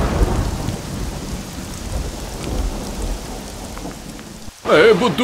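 Thunderstorm sound effect: steady heavy rain with a low rumble of thunder, loudest at the start and easing off. Near the end a louder pitched musical sound cuts in.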